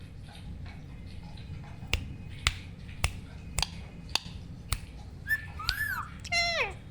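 Rose-ringed parakeet making two whistled calls near the end, the first rising then falling, the second falling. Before them come six sharp clicks, about two a second.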